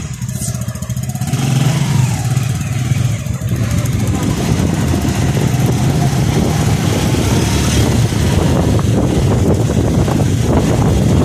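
Motorcycle engine running as the bike rides along, getting louder as it picks up speed about a second and a half in, with a broad hiss of wind and road noise.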